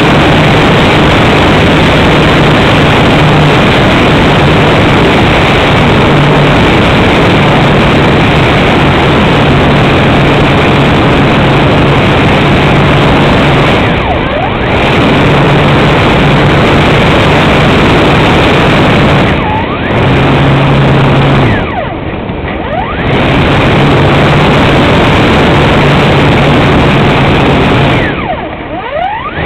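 Motor and propeller of a radio-controlled model plane in flight, heard from a camera mounted on the plane: a steady motor hum under heavy rushing wind noise. Four times the throttle is cut back briefly, the hum dropping away and the pitch sliding as the propeller slows, then spinning back up.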